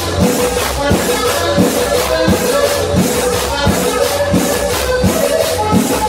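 Cumbia music played loud over a sonidero sound system. It has a steady beat a little faster than one a second, rattling shaker-like percussion, and a held melody note.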